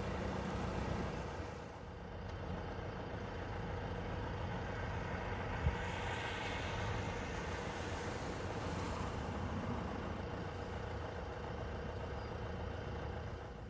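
Steady low engine hum with a faint constant tone, like a diesel running at idle, with a single short knock about six seconds in.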